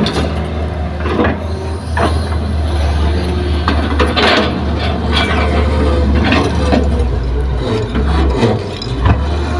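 Heavy diesel excavator engine running steadily under a series of irregular scraping and grating strokes from its steel bucket working through hard, stony soil, with occasional knocks of soil and rock.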